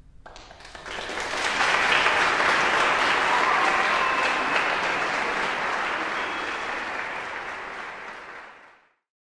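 Audience applauding, building up over the first two seconds and fading out near the end.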